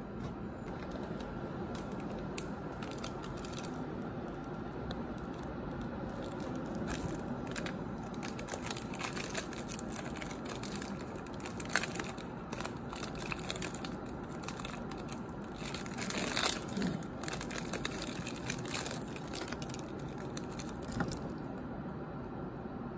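A clear plastic snack wrapper crinkling and crackling in short, irregular bursts, handled over a desk. There is one sharp crack about halfway through and a denser rustle about two-thirds of the way in.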